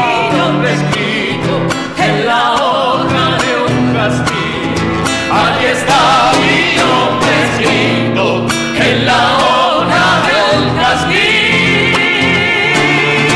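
A woman and a man sing a folk song together over a strummed steel-string acoustic guitar, with other voices singing along. Near the end one voice holds a long high note with vibrato.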